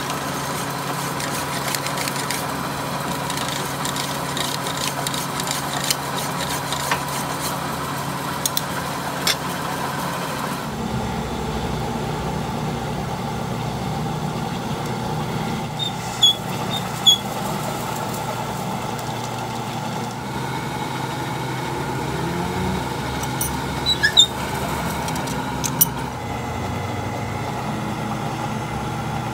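Metal lathe running with a steady machine hum. About eleven seconds in the hum turns deeper, and a few short, sharp metallic clicks come later on.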